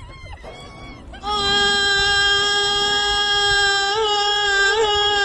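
A voice in an Arabic lament song holding one long, loud sung note, starting about a second in and beginning to waver into ornamented turns near the end.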